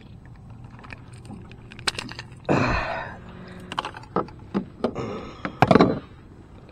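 Metal clicks, knocks and rattles from a Leatherman multi-tool's pliers working a crankbait hook out of a small fish's mouth, with the tool then laid down on the plastic kayak deck. Two louder scrapes or thumps come about two and a half and five and a half seconds in.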